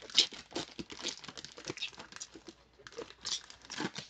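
Foil trading-card pack wrapper being torn open and crinkled as the cards are pulled out. The crackling is irregular and is loudest just after the start and again near the end.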